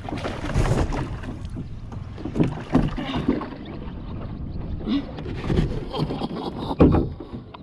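Wind rumbling on the microphone and water around a kayak while a bass is reeled in and lifted aboard, with a couple of sharp knocks late on.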